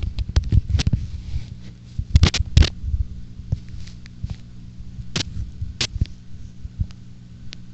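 Aquarium pump humming steadily at a low pitch, overlaid with sharp clicks and knocks that come in a cluster in the first three seconds and singly a few times later.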